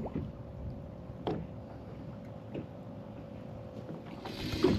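Steady low hum of a fishing boat on the water, with a few faint clicks and knocks on board; near the end a buzzing, whirring hiss starts up.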